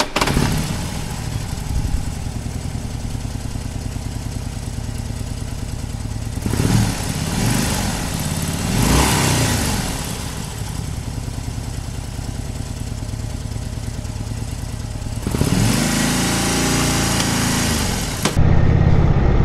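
Indian Chief Vintage motorcycle's V-twin engine idling with an even, loping beat, its pitch rising and falling a few times in short sweeps. Near the end the sound changes to a louder, deeper steady drone.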